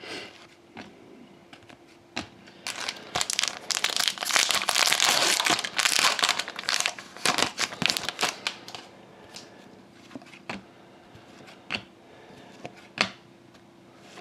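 Foil hockey-card pack wrapper crinkling and tearing as it is opened and handled, a dense crackle lasting about six seconds from a few seconds in. Single sharp clicks of cards being flicked come before and after.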